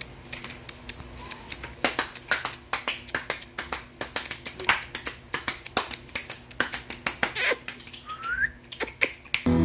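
Quick, irregular, sharp clicks, several a second, like a person snapping or clicking to get a litter of puppies to look up. One short rising squeak comes about eight seconds in.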